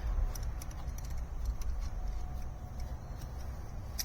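Light, irregular metal clicks and taps of a socket wrench and small bolts being handled as the shifter housing bolts are backed out, with one sharper click near the end, over a low steady rumble.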